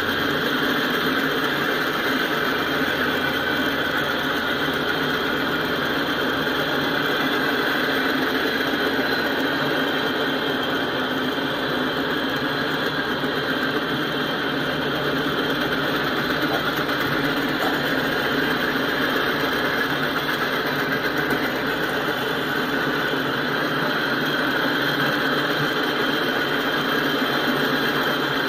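Freight cars of a passing train rolling by on steel rails: a steady, unbroken noise of wheels running on the track.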